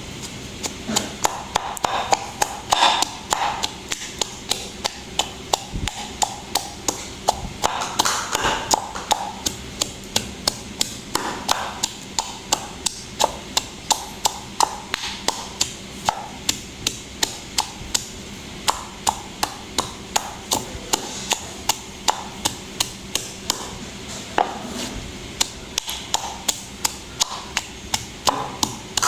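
Knife chopping on a cutting board: a steady run of sharp strikes, about two or three a second.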